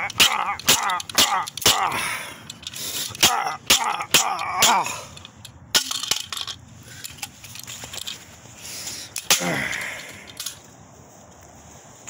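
Plastic toilet fill valve being smashed against a concrete driveway: sharp cracks and clatters of breaking plastic, about two a second for the first five seconds, then a few scattered hits before it goes quieter near the end.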